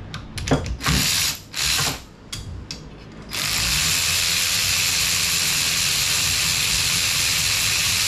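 Power ratchet spinning out a long bolt from an engine's cam phaser: a few short bursts, then a steady run from about three seconds in.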